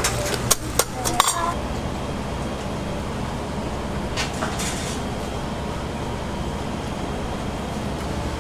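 Kitchen utensils knocking and clinking at a food stall, a handful of sharp strikes in the first second or so, then a steady background hum with a brief hiss about four seconds in.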